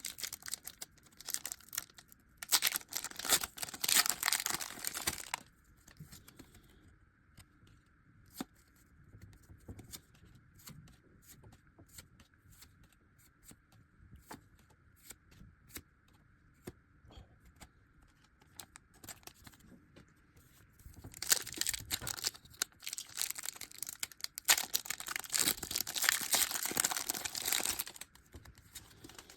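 Foil Pokémon card booster packs being torn open and crinkled: two bouts of loud tearing and crinkling, a short one a few seconds in and a longer one near the end, with faint ticking and rustling between.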